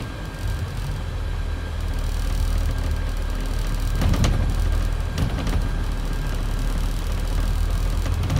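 Scania E400 double-decker bus on the move, heard from the upper deck: a steady low engine drone with a faint constant whine, and body rattles knocking a couple of times around the middle.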